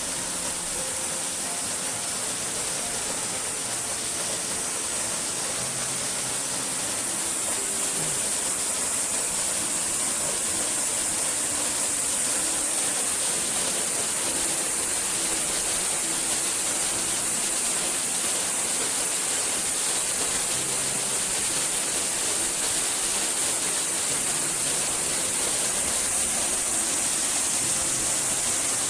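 Waterfall: falling water making a steady, even rush that grows a little louder over the first several seconds.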